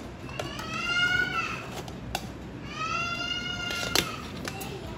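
A cat meows twice, each call long and rising then falling in pitch. A sharp tap of the metal loaf tin against the steel plate comes near the end.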